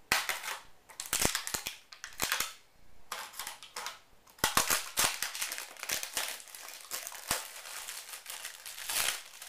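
Bicycle pedals and their packaging being handled and unwrapped: crinkling with many sharp clicks and knocks.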